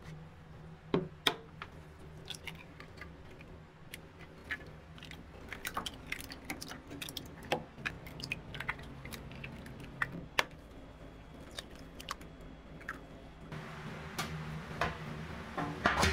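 Eggshells being cracked one after another into a plastic tub: irregular sharp cracks, a few each second, over a low steady hum. Near the end a louder steady rush of noise comes in.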